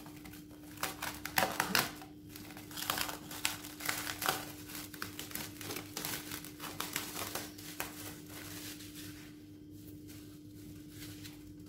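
Plastic cling film being peeled off a bowl, crinkling and crackling, dying down about eight seconds in.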